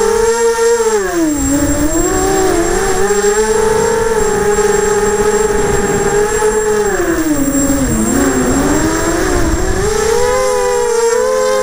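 Graupner Alpha 250 racing quadcopter's brushless motors and propellers whining in flight, heard from the aircraft itself. The pitch drops about a second in and again a few seconds before the end as the throttle eases, then climbs back, over a rumble of wind on the microphone.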